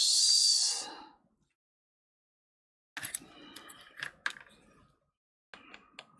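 A sharp hiss in the first second. Then, after a silent gap, light irregular clicks and taps of hands and tools working on the opened MacBook Air A1466's logic board and connectors, with a faint steady high tone joining near the end.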